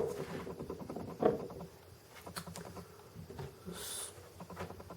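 Faint handling of small parts on a work surface: a sharp click at the start, then a few small taps and clicks, with a brief hiss near the end.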